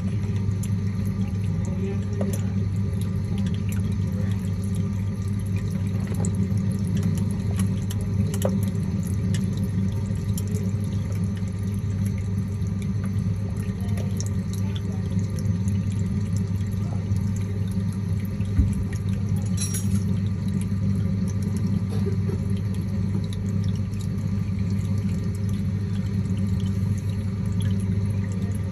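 Aquarium water circulating: a steady trickle and splash of moving water over a low, even pump hum, with scattered small drips and ticks.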